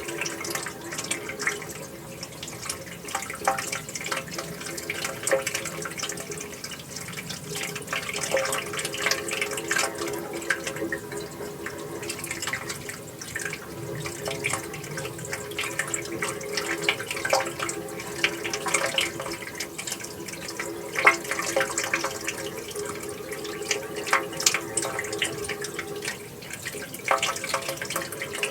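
Running water flowing steadily, with many small irregular splashes and gurgles over a constant rush.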